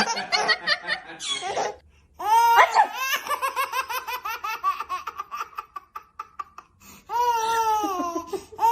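A baby laughing in high-pitched bursts: a short run, then a long string of rapid laughs lasting several seconds that slowly sinks in pitch, then more laughing near the end.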